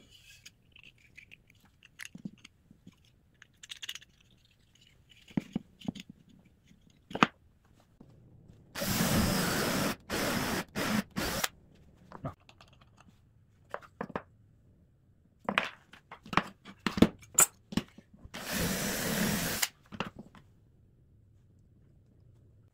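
Handheld power drill running in short trigger pulls, drilling into a wooden block: a longer stretch broken by brief stops about nine seconds in, and one more burst near nineteen seconds. Around these, light clicks and knocks of small parts being handled and set down on a wooden workbench.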